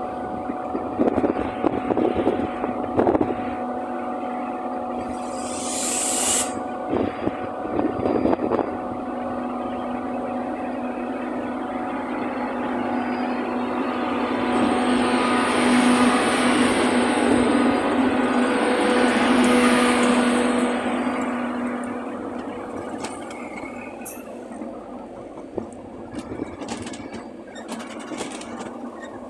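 Class 91 electric locomotive of an InterCity 225 set moving slowly past a platform. Its steady electric hum and whine swell to their loudest as the cab goes by around the middle, then fade as the coaches roll past, with scattered clicks.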